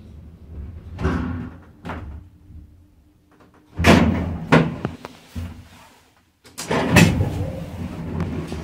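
Doors of a 1990 ZREMB elevator clunking and slamming: lighter knocks about one and two seconds in, then several loud bangs about four seconds in and again about seven seconds in.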